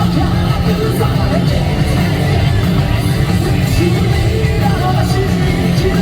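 Live J-rock band playing loud and steady: distorted electric guitar, bass and drums, with a male lead vocal singing over it, recorded from the audience.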